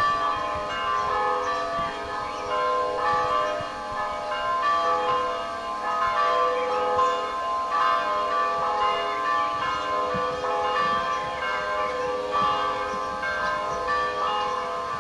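Orthodox church bells pealing: several bells of different pitches struck over and over, their tones ringing on into one another.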